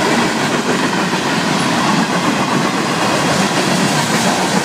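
Freight train cars rolling past close by: a steady, loud rumble and rattle of wheels on rail.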